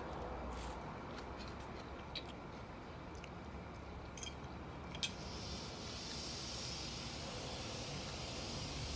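A person eating: a metal fork clicks a few times against a ceramic plate between bites, over a steady low background hum.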